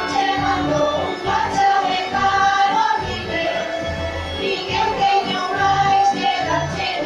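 Live amplified music in a tent: female voices singing a melody over electronic keyboard accompaniment with a bass line.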